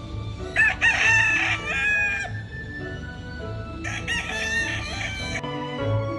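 A rooster crowing twice, each crow about a second and a half long, over background music.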